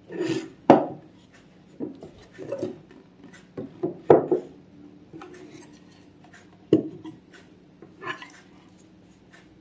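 Small solid-wood folding table being turned over and set down on a wooden tabletop: a string of wooden knocks and clatters, sharpest about a second in, around four seconds and near seven seconds.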